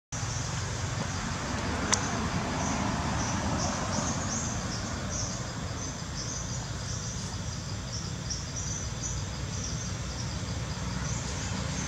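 Insects chirping in a high, pulsing chorus over a steady low rumble, with a single sharp click about two seconds in.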